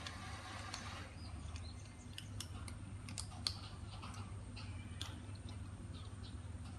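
Cat chewing dry kibble: an irregular run of small crunching clicks over a low steady hum.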